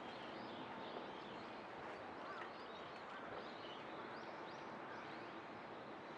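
Faint birds chirping over a steady outdoor background hiss, many short high calls scattered throughout.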